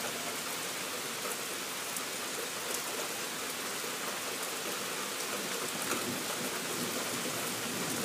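Heavy rain pouring down: a steady, even hiss of rainfall with faint ticks of individual drops.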